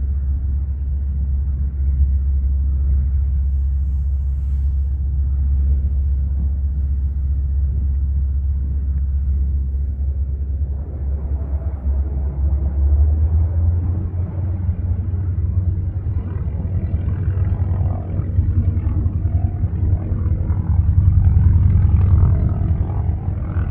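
A 1945 North American SNJ-6 Texan's Pratt & Whitney R-1340 nine-cylinder radial engine running with a steady low rumble. The sound grows fuller about halfway through and a little louder near the end.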